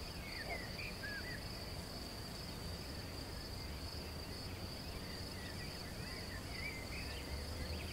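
Meadow ambience: a steady high-pitched insect chirring, with faint bird twitters in the first second or so and again near the end.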